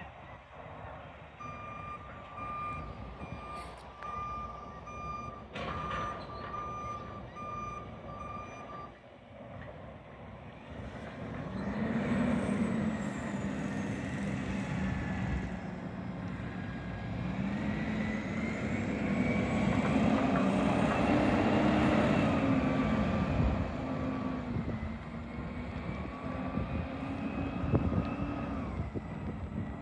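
Garbage truck's reversing alarm beeping over and over, then after about ten seconds the truck's engine revs up and runs louder as it pulls away, its pitch rising and falling.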